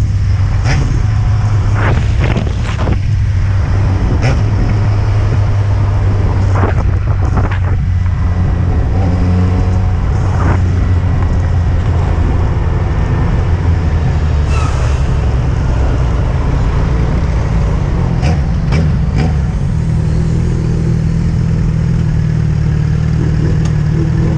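Yamaha XJ6N's inline-four engine running steadily under way, mixed with wind and road noise on the rider's microphone.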